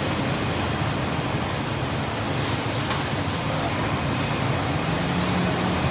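Four-layer bubble wrap film machine running steadily: the motors and rollers of its winding section give a continuous mechanical rumble. A high hiss joins in about halfway through.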